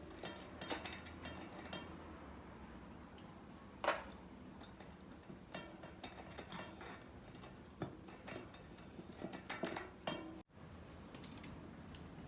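Metal bicycle cassette sprockets and spacers clicking and clinking as they are handled during a cassette removal and swap, with scattered light ticks and one louder clink about four seconds in.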